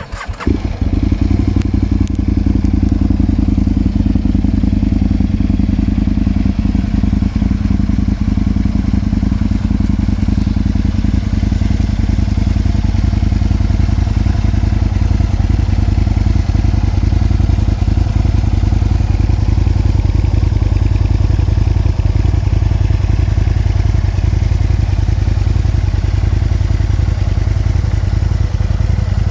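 Aprilia Tuono 1000R's 998 cc V-twin engine starting and catching at once, then running steadily at idle.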